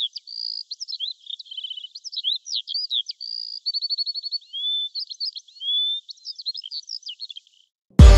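A songbird singing a long, varied song of quick chirps, rapid trills and drawn-out whistled slurs, which stops shortly before the end. Loud electronic music with a heavy beat starts at the very end.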